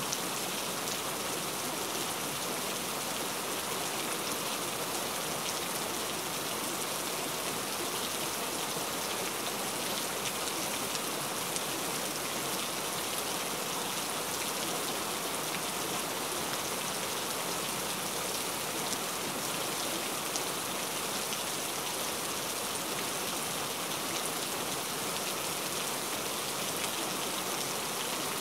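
Steady rain sound, an even hiss with many fine drop ticks and no rise or fall in level, used as the masking track of a subliminal recording.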